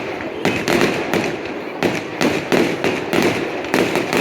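Fireworks display: a rapid, irregular string of bangs and crackles, two or three a second.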